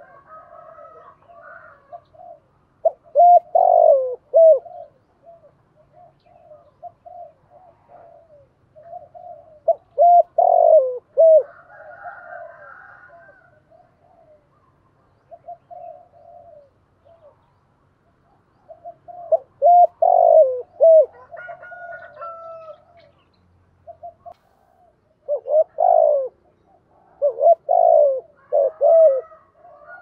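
Spotted dove cooing: loud phrases of a few coos every several seconds, with softer cooing in between.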